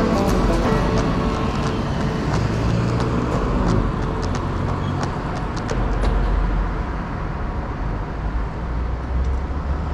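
Road traffic at a city intersection: cars and trucks passing with a steady low rumble.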